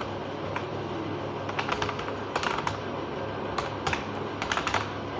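Typing on a computer keyboard: two quick runs of key clicks over a low steady hum.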